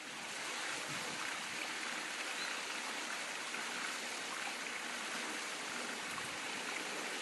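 Running water flowing steadily, an even rushing hiss with no breaks.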